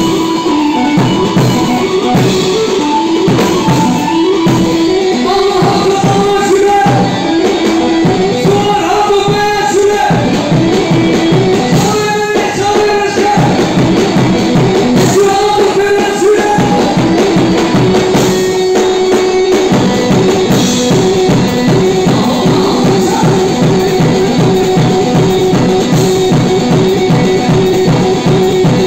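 Live wedding-band dance music: a keyboard and an amplified long-necked saz (bağlama) play a melody over a steady, driving drum-kit beat.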